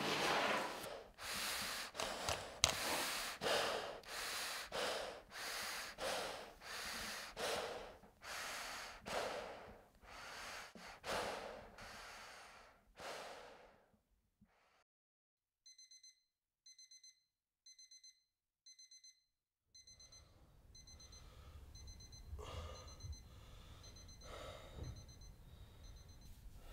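Heavy, gasping breaths through a gas-mask respirator, about one a second, dying away about halfway through. After a short silence an electronic alarm clock starts beeping in short high beeps, a little faster after a few seconds.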